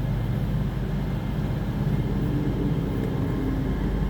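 A train's engine running with a steady low hum as the train stands ready to depart.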